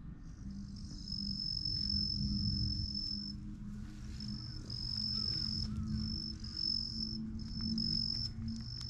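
An insect singing a high, steady buzz. It runs unbroken for about three seconds, then goes on in shorter bursts of half a second to a second.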